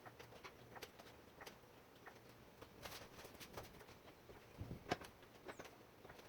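Near silence with faint, irregular clicks and knocks, the sharpest a little under five seconds in.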